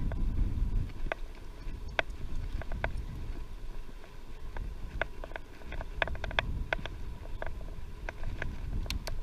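Wind buffeting the microphone while cycling, a low rumble that eases in the middle and rises again near the end, with irregular small sharp clicks and rattles throughout.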